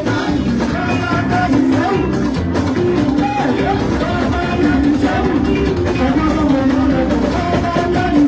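Band music with a voice singing over a steady beat.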